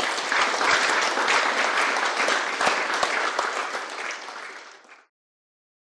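Lecture audience applauding, a dense patter of many hands clapping that tails off slightly and then cuts off suddenly about five seconds in.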